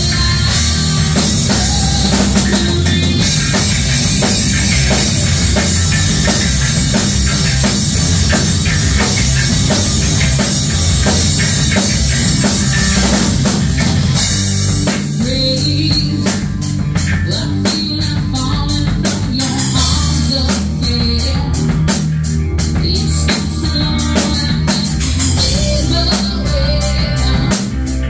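Heavy metal band playing with a female singer, distorted electric guitar, bass and drum kit. Crashing cymbals wash over the first half, and about halfway through the drums switch to a tighter, punchier beat.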